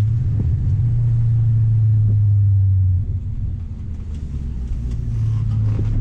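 Audi B7 RS4's 4.2-litre V8 running at a steady low pitch, easing off for a couple of seconds around the middle and coming back up near the end.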